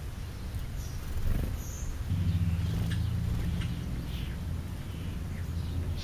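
Steady low hum that starts abruptly about two seconds in and carries on, with scattered short, high chirps of small birds over it.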